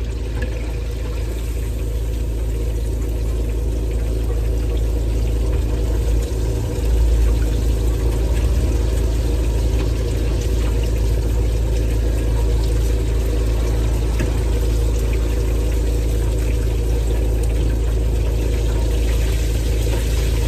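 Steady low mechanical hum of a running machine, with a slight rise in level about seven seconds in.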